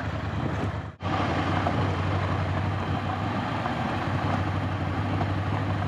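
Ducati Scrambler motorcycle riding along a rough unpaved road: steady engine and road noise. It cuts out briefly about a second in.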